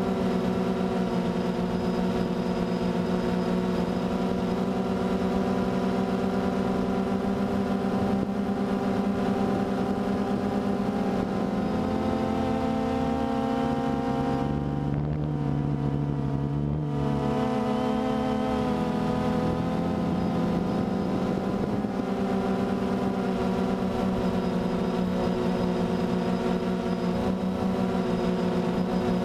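DJI Phantom 2 quadcopter's electric motors and propellers humming steadily, heard from the GoPro mounted on the drone. About halfway through, the pitch dips and the hiss thins for a few seconds, then comes back up.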